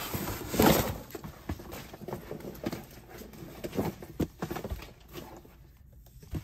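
Die-cutting machine plates and plastic packaging being handled: a loud plastic rustle about half a second in, then scattered light knocks and taps as plates and shims are set down.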